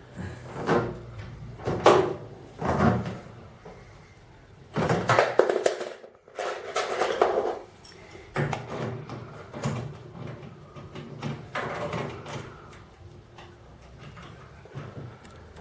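Irregular knocks, bumps and rustling from handling a washing machine and its packaging, loudest about two seconds in and again around five to seven seconds in.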